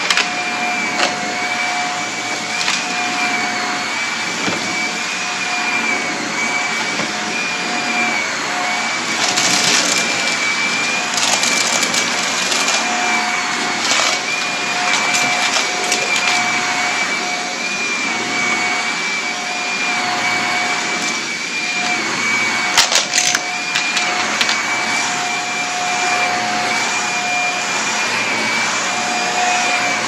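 Vacuum cleaner running steadily with a high motor whine as it sucks up crunchy grit, which crackles and rattles through it in several short spells.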